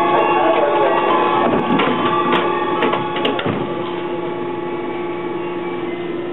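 Running sound inside a JR West 415 series 800 subseries EMU's Kumoha 415 motor car: a steady hum with several held tones, broken by a cluster of clicks and knocks from about a second and a half to three and a half seconds in. It then settles to a slightly quieter, steady run.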